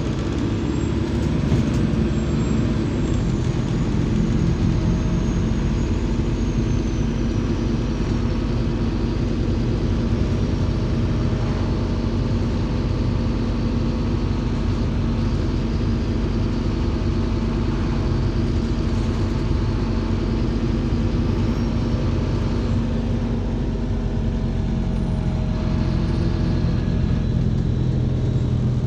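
Inside a MAZ 203 city bus under way: the Mercedes-Benz OM 926 LA six-cylinder diesel runs with a steady drone, mixed with road noise. A faint high whine slowly falls in pitch during the first several seconds.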